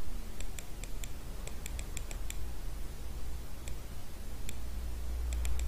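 Light, quick computer clicks in short runs of several at a time, as on-screen controls of a CNC simulator are operated, over a low steady hum.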